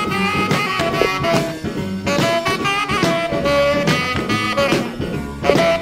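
Background music: an instrumental break in an upbeat song, with horns playing.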